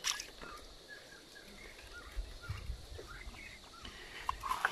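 Hands splashing and groping among stones in shallow stream water, with a sharper splash or knock at the start and another pair near the end. Faint short high animal calls sound now and then throughout.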